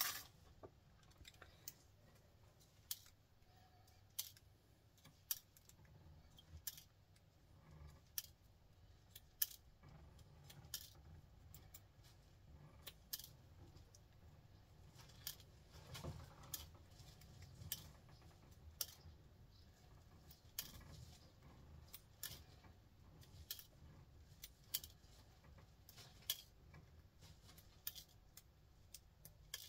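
Small, sharp clicks and snips, irregular and about a second or two apart, as gold-plated pins are pried and pulled out of plastic computer cable connectors.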